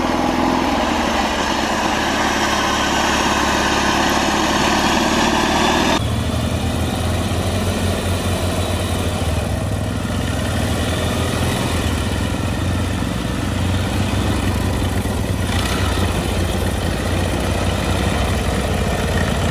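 Small lawn-tractor engines running on mowers fitted with ATV snow tracks. About six seconds in the sound changes abruptly to a lower, steadier engine note as a tracked mower crawls over a dirt pile.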